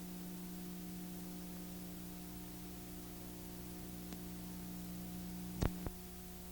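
A faint, steady hum with light hiss, and two short clicks close together near the end.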